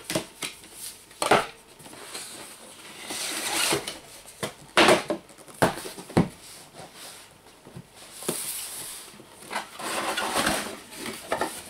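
Cardboard router packaging being handled and opened: a sticker peeled off, a white inner box slid out of the retail box with rustling scrapes, a few sharp knocks as boxes are set on the table, and the inner box's lid flaps lifted near the end.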